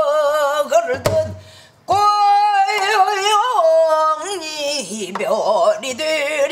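Female pansori singer singing long, wavering, sliding notes in a strained, emotional voice. She accompanies herself on a buk barrel drum, with sharp strokes about a second in and again near two seconds, around a brief break in the singing.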